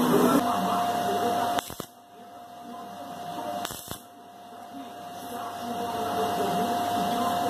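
Electric arc welding a small iron piece onto the metal frame of a scale-model motorcycle. The arc gives a noisy buzz over a steady high whine, in three runs that break off briefly about two and four seconds in.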